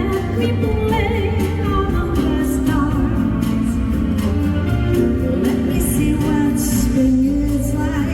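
Live band music from a concert PA with a woman singing over it, recorded from the audience in a large arena.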